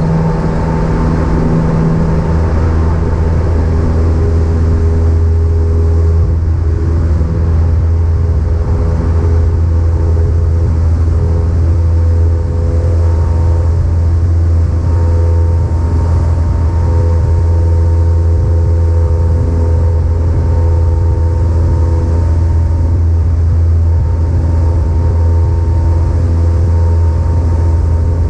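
Cessna 172's piston engine and propeller running in a steady, loud drone.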